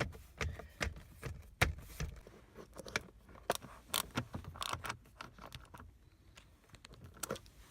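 Irregular metallic clicks, clinks and light scrapes of hand tools working a battery terminal as the battery is reconnected.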